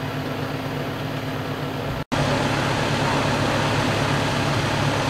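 Steady low hum of an idling vehicle engine. It breaks off for an instant about two seconds in and comes back a little louder.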